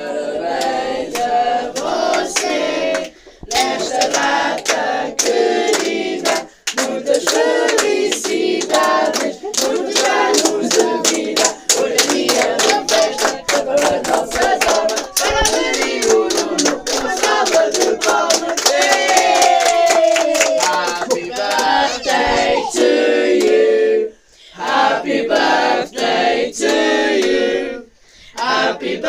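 A group of people singing a birthday song together and clapping along in time, with a few short breaks between lines.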